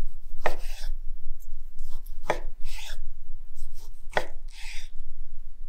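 Large kitchen knife slicing a cooked steak on a wooden cutting board: three sharp knocks of the blade on the board, about two seconds apart, each followed by a short scraping stroke.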